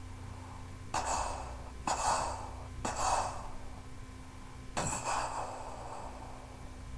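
Mouth-made war-machine sound effects: four sudden bursts of breathy noise imitating weapon blasts, each fading out quickly. Three come about a second apart, then a fourth about two seconds later.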